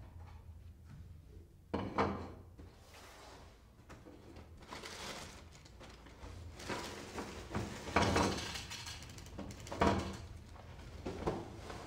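Kitchen handling sounds: a few knocks as a bowl and a cereal box are fetched and set down on a countertop, then Special K flakes poured from the box into a bowl near the end.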